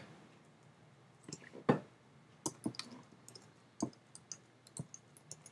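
Keys of a computer keyboard being typed: a string of short, irregularly spaced clicks starting about a second in, as a filename is typed.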